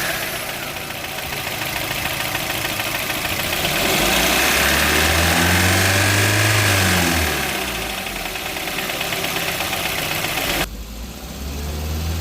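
Freshly overhauled Maruti Suzuki Brezza 1.5-litre four-cylinder petrol engine, warmed up, idling and given one gentle rev that rises and falls back to idle, running smoothly. Over it the electric radiator cooling fan makes a steady rushing noise that cuts off suddenly near the end.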